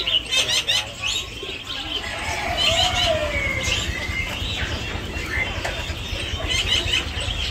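Caged market animals chirping and tweeting: many short high calls overlapping, with a lower falling call about three seconds in, over a steady low rumble.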